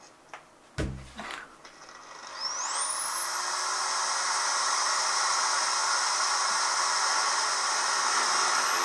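A handheld electric power tool starting up, its whine rising quickly as the motor spins up and then running steadily at full speed. It is preceded by a couple of clicks and a low thump about a second in.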